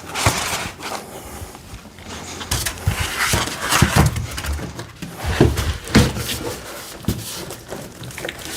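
Cardboard shipping box and packing material being handled: irregular rustling, scraping and a few knocks as the box is pulled open and the contents shifted.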